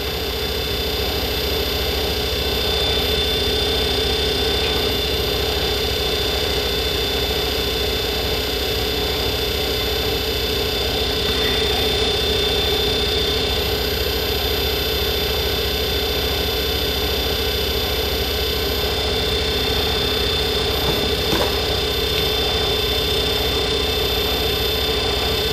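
Small lathe running steadily at constant speed, a steady hum with a high whine, spinning a nickel silver male ferrule that is being sanded with 400-grit abrasive paper on a block.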